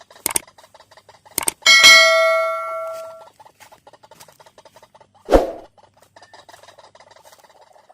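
Two sharp clicks, then a loud bell-like ding that rings out and fades over about a second and a half, followed a few seconds later by a single dull thump.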